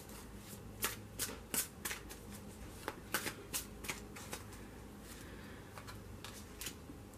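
Tarot deck being shuffled by hand: a string of short, crisp card slaps and snaps, about two to three a second, thinning out after about four and a half seconds.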